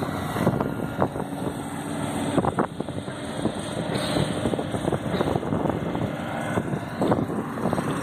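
Wind buffeting the microphone over a steadily running engine, with scattered short knocks and clicks.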